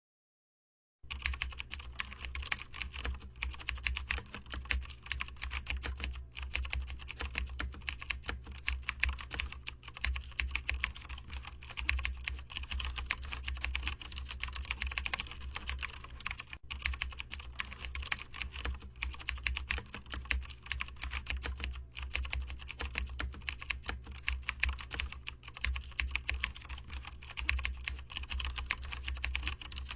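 Continuous rapid typing on a computer keyboard, many keystrokes a second, starting about a second in.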